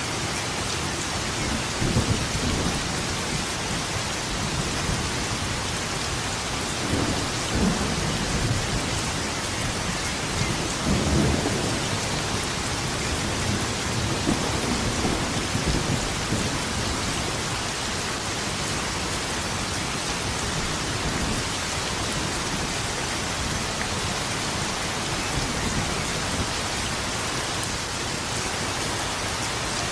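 Steady heavy rain, with low rolling thunder rumbling in several times during the first half, loudest about eleven seconds in; the rain alone carries on through the second half.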